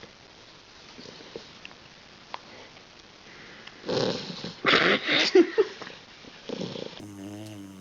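Sleeping puppy snoring and snuffling: faint breaths at first, then a few loud, rough snorting breaths in the middle. Near the end a pitched, wavering, whistling snore begins.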